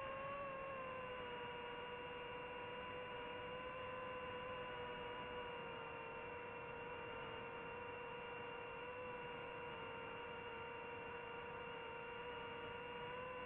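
FPV racing drone's electric motors and propellers whining steadily in flight, one held pitch with higher overtones that wavers slightly with throttle and lifts a little near the end.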